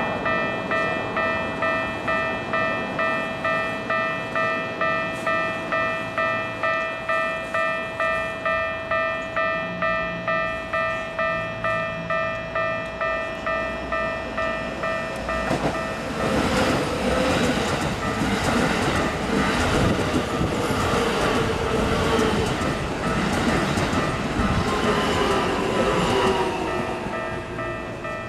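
Japanese railway level-crossing warning bell ringing, a steady electronic ding-ding at about two strikes a second. About sixteen seconds in a Keikyu 2100-series train passes over the crossing, its rumble and wheel clatter drowning the bell for about ten seconds before easing off near the end.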